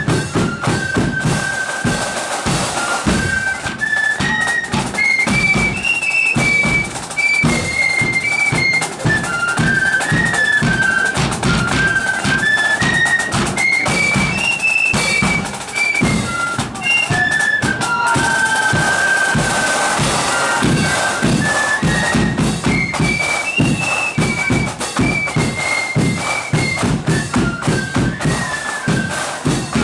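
Marching flute band playing a tune in unison on flutes, with drums and a bass drum beating time.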